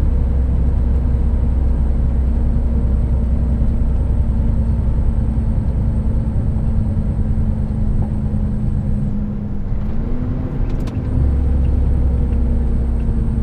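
Truck's diesel engine running steadily under way, heard from inside the cab over road noise. About nine seconds in, the deep low drone drops off for a couple of seconds and the engine note steps up a little, with a short click, before the drone comes back.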